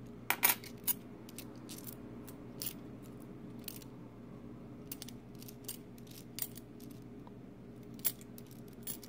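Silver dimes clicking and clinking against one another as they are handled and sorted, in scattered sharp clicks, loudest about half a second in and again near the end, over a faint steady hum.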